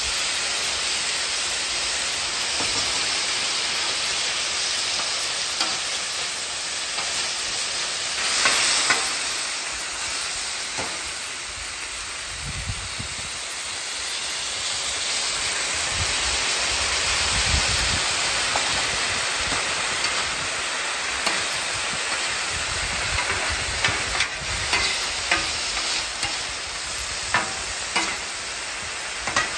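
Stir-fry sauce sizzling and steaming as it hits broccoli and beef strips on a hot Blackstone griddle, with a louder swell of sizzle about a third of the way in. Near the end, sharp metal clicks against the griddle as the food is tossed.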